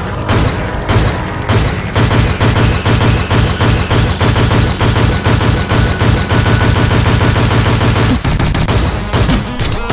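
Background music with a fast, heavy drum beat.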